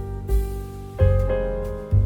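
Background music: piano with a bass line, chords changing about every second.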